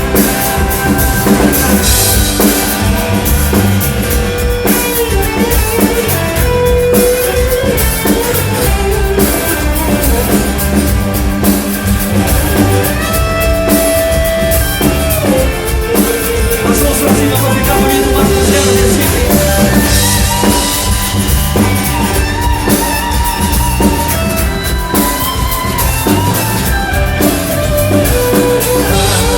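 Live pop-rock band playing through a concert sound system: drum kit and guitar under a melodic line, at a steady, loud level.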